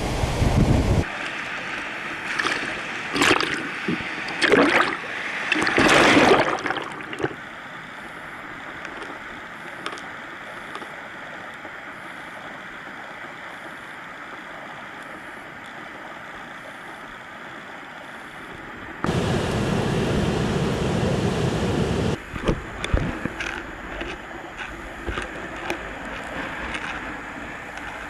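Heavy surf on a storm-rough sea: waves breaking in a few loud crashing surges early on, then a steady wash of surf. Wind buffets the microphone in a low, loud rumble for a few seconds past the middle.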